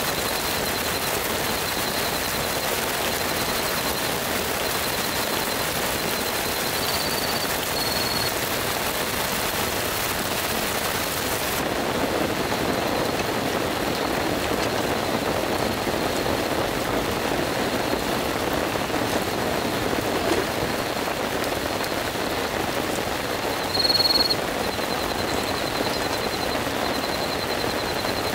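Steady heavy rain falling, an even hiss. Faint trains of high chirps repeat through it, and one short, louder high chirp comes about 24 seconds in.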